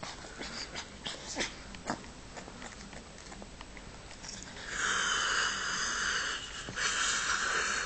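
Pug puppy yawning: a loud, breathy wheeze about halfway through that lasts about two seconds, then a second one after a brief break. Before it there are only faint rustles and small clicks.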